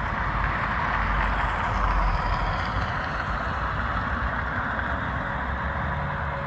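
Steady road traffic noise from a slow queue of cars and vans creeping forward, with a low engine rumble underneath; it swells slightly about two seconds in.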